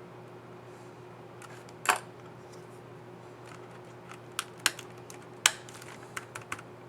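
HP 15-DY laptop keyboard keys clicking under the fingers: about seven sharp plastic clicks, irregularly spaced, one about two seconds in and a cluster near the end. A steady low hum runs underneath.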